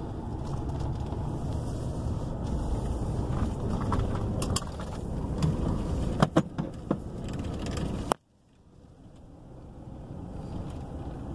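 Low rumble of a pickup truck driving slowly over a dirt lease road, heard from inside the cab, with a few sharp clicks about halfway through. The sound cuts out abruptly about eight seconds in and fades back in more quietly.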